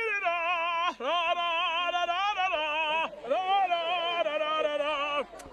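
A man singing long, wavering held notes in a Hindi film song, in three phrases with short breaks about a second and three seconds in.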